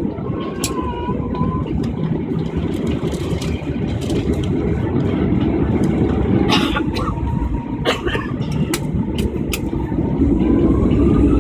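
Airliner cabin noise as the jet engines spool up for takeoff: a steady low rumble, with an engine whine that appears about six seconds in and rises in pitch near the end as the noise grows louder. A few sharp clicks and rattles from the cabin.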